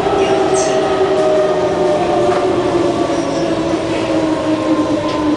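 Kawasaki C151 train's Mitsubishi GTO chopper traction equipment and motors whining over wheel and car rumble, several tones falling slowly in pitch as the train slows into a station. A brief high hiss about half a second in.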